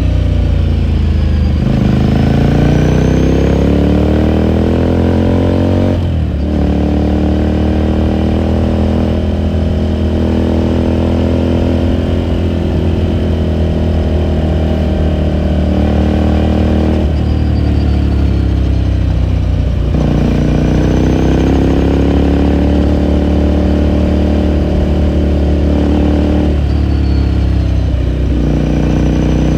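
2018 Ducati Scrambler Sixty2's air-cooled 399 cc V-twin running under load, exhaust note climbing in pitch as the bike accelerates. The note breaks off and restarts lower about 6 s, 17 s and 27 s in, as at gear changes.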